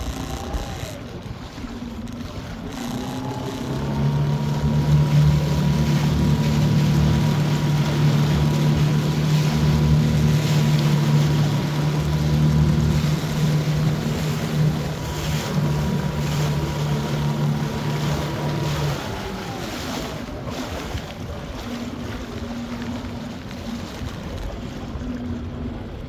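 A small fishing boat's motor running under way: a steady hum with a high whine that climbs as it speeds up a few seconds in, holds, then winds down about three-quarters of the way through. Choppy water and wind noise run underneath throughout.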